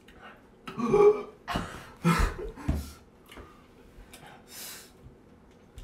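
A young man's throat sounds and sharp breaths: several short, loud bursts in the first three seconds and a breath near the end. They are his reaction to the burn of a just-swallowed Carolina Reaper pepper.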